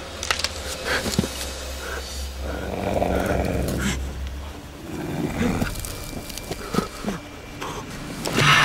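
An animal growling in short bouts over a low steady rumble, with scattered short clicks.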